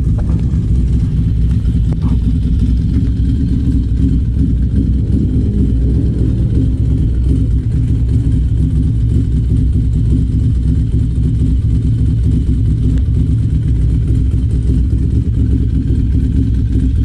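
Ducati Monster 696's air-cooled V-twin idling steadily through a Termignoni aftermarket exhaust, low and even with no revving.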